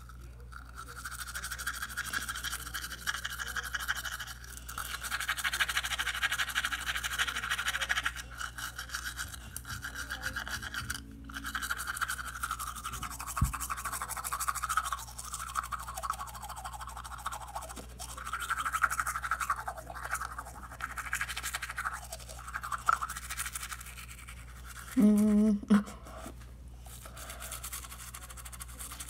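Manual toothbrush scrubbing teeth, a continuous wet, scratchy brushing with uneven strokes. About 25 seconds in, a short loud hum cuts across it for about a second.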